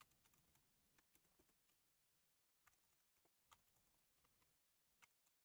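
Very faint computer keyboard typing: scattered single keystrokes, barely above silence.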